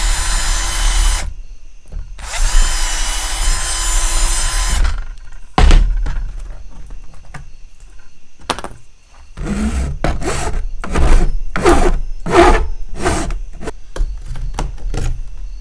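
Power drill running in two bursts, about a second and then about two and a half seconds long, boring holes through a panel to perforate a square cut-out. Then comes a run of about ten short, separate hand-tool strokes on the panel.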